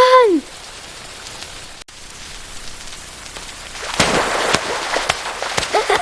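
Steady rain with scattered sharp crackles, growing louder and denser about four seconds in. A short bird call rises and falls right at the start, and a fainter call comes near the end.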